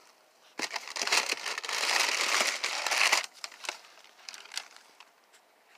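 Shoebox tissue paper crinkling and rustling as a pair of sneakers is handled in it. The crinkling starts about half a second in and lasts nearly three seconds, then gives way to a few light rustles and taps.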